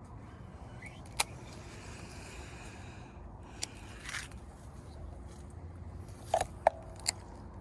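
Fishing tackle being handled: a few sharp clicks and short rustles, three of the clicks close together near the end, over a low steady rumble.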